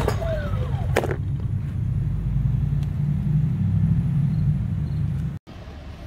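DuroMax XP2300iH generator's recoil starter yanked at the start and again about a second in, with a falling whir as the rope runs. The engine fails to start on a replacement propane regulator. A low rumble follows for about four seconds and cuts off abruptly near the end.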